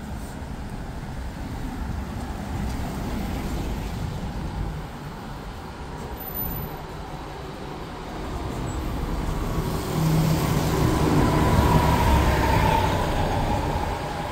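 Street traffic passing close by: road noise from passing cars, then a coach bus's engine and tyres grow louder as it approaches and passes, loudest about ten to thirteen seconds in, with a faint whine.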